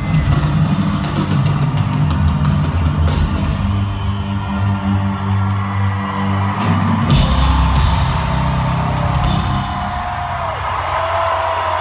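Rock band playing live at arena volume: heavy held bass and guitar chords with drums and several big crash-cymbal hits, winding down a song. Near the end the band thins out and crowd cheering comes through.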